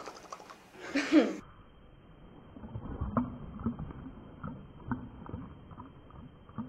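A short burst of a boy's voice about a second in. Then the sound abruptly turns to slowed-down audio: deep, drawn-out low voice-like sounds and scattered soft knocks, muffled and dull.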